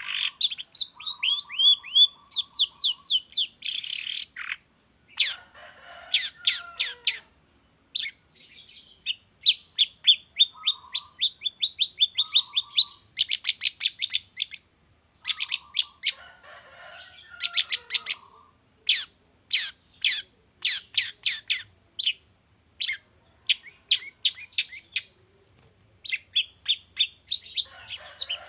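Long-tailed shrike (cendet) singing: rapid runs of sharp down-slurred whistled notes, broken by harsh chattering phrases and short buzzy trills, in bursts with brief pauses.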